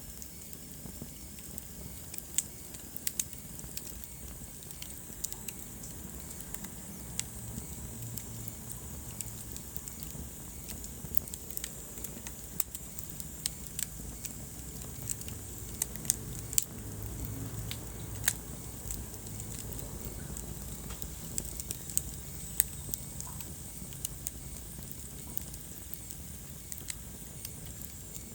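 Wood fire burning in a fireplace: irregular sharp crackles, a few louder than the rest, over a steady low rumble of the flames.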